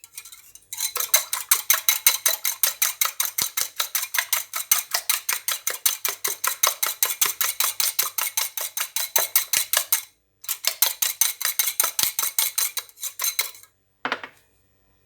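Egg white being beaten by hand in a bowl: a utensil clicking rapidly and evenly against the bowl, about six or seven strokes a second. There is a brief pause about ten seconds in, and the beating stops shortly before the end.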